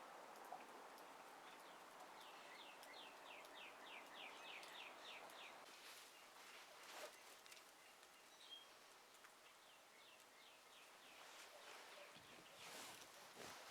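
Faint bird song: a rapid series of short, high chirps, about four a second, for several seconds, repeated more faintly later, over a soft steady outdoor hiss. A soft whoosh sounds near the middle and another near the end.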